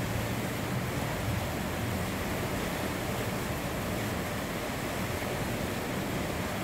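Steady rushing of river water, an even hiss with no breaks or changes.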